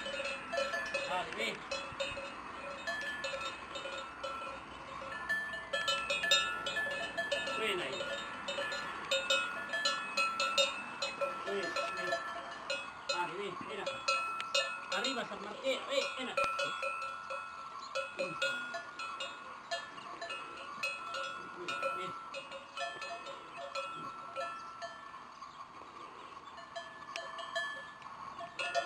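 Metal cowbells on the necks of bulls clanking and ringing unevenly as the animals shift about while they are led and yoked, with many sharp clanks over a steady ringing.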